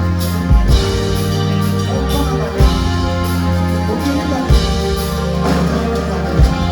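Live band playing Ghanaian Frafra gospel-highlife: held chords over a bass line and drum kit, with strong drum hits about every two seconds.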